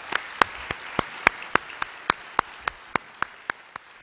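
Audience applause in a theatre hall, slowly fading, with one pair of hands clapping close to a microphone, sharp and regular at about three or four claps a second.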